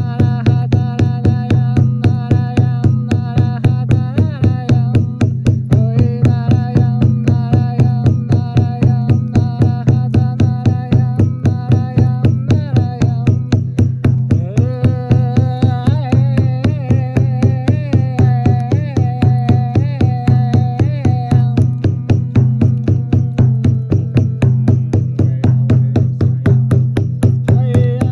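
Background music: a quick, even drumbeat over a steady low drone, with a melody that glides and bends in pitch.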